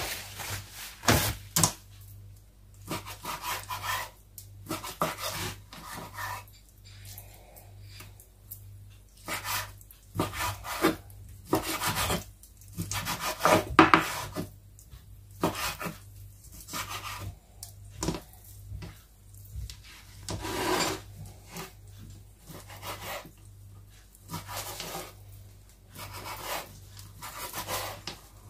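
Irregular rubbing and scraping strokes against wood, some short and some a second or so long, with a few sharper knocks in between, over a faint steady hum.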